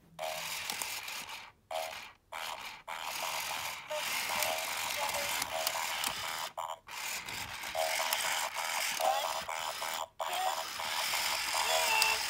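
Battery-powered toy robot making its electronic sound effects through a small speaker: a crackly, hissing noise broken by several short pauses, with warbling chirps toward the end.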